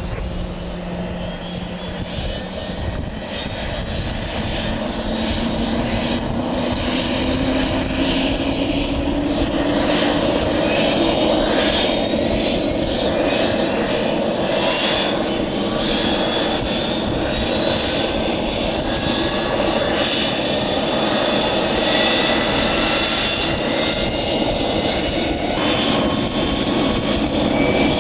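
Air ambulance helicopter's turbine engines winding up: a whine that rises steadily in pitch and grows louder over the first dozen seconds or so, then holds steady.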